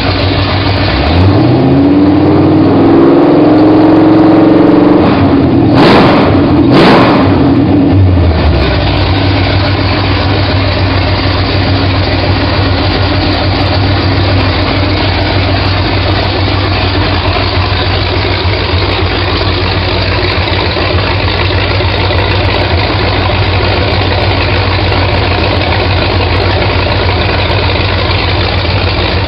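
Rebuilt Ford 302 small-block V8 running on an engine test stand: idling, then revved from about a second in, held up for a few seconds and let back down to idle by about eight seconds, with two sharp cracks near the top of the rev. It then idles steadily.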